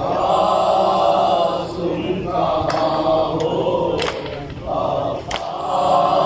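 A group of men chanting a noha, a Shia mourning lament, together in a slow sung line. Several sharp slaps cut through at irregular moments, consistent with chest-beating (matam).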